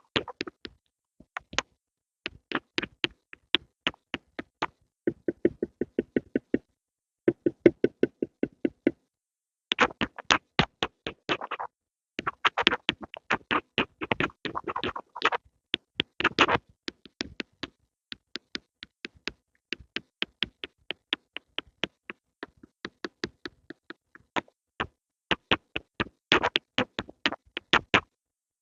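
Pencil sounds close to the microphone: a fast series of short, crisp clicks, several a second, in bursts with brief pauses. For a few seconds about a fifth of the way in they turn duller and lower.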